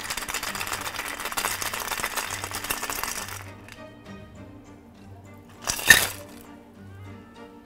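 Port-wine cocktail foam being dispensed onto the drink, a hiss with dense crackling for about three and a half seconds that then fades out. A single sharp clink comes about six seconds in, the loudest sound, over background music.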